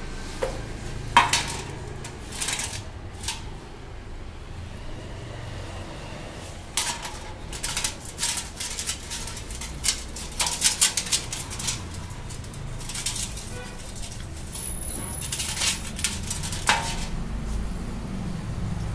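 Honda Activa clutch parts clinking and scraping against a steel basin while they are handled and scrubbed with a brush, in several short clusters of sharp metallic clicks.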